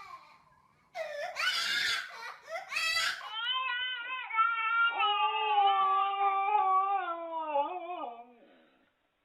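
Wailing cries: a short loud cry, then one long held wail that falls in pitch near the end.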